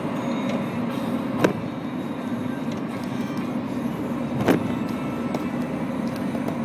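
Steady engine and road hum inside a moving car's cabin, with two short clicks, about a second and a half in and again three seconds later.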